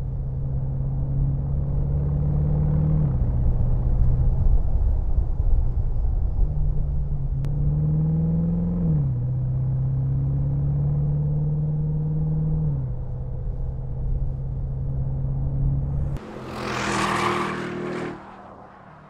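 Bentley Continental GT V8 S's twin-turbo V8 running under throttle, its note climbing slightly and then stepping down in pitch three times as it shifts up. Near the end the engine sound drops away and a brief rushing whoosh rises and fades.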